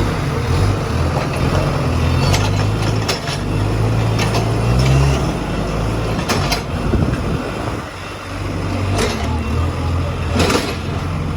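Diesel engine of a Case 851EX backhoe loader running, its note swelling and easing as the load changes. Several sharp knocks come through it, the strongest near the end.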